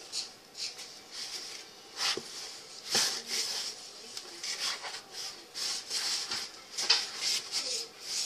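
Hands rubbing and squeezing crumbly shortbread mixture of flour, butter and sugar in a plastic mixing bowl: irregular rustling and scraping strokes.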